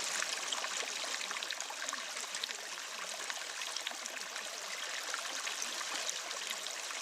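Steady rush and trickle of running water, like a stream, with small ticks of droplets through it.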